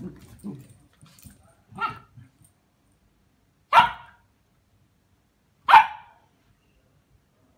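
A Tibetan terrier barking in play at a cat: a softer bark about two seconds in, then two loud, short single barks about two seconds apart, with a few soft low sounds at the start.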